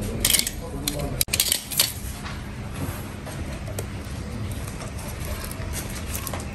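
A few sharp metallic clicks and clinks of hand tools being handled in the first two seconds, followed by low steady background noise.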